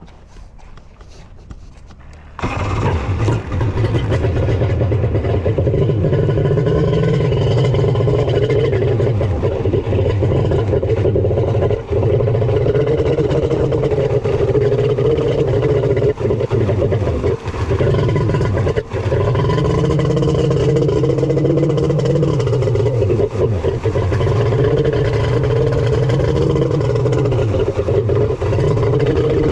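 Kawasaki X2 stand-up jet ski with a rebuilt 1100 three-cylinder two-stroke engine, running under way on the water. The engine comes in suddenly about two seconds in after a quieter stretch, then runs loud and steady with its pitch wavering as the throttle changes, dipping briefly a few times.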